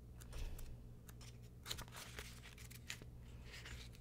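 Pages of a paperback guidebook turned by hand: faint papery rustling with a few sharper flicks of individual pages.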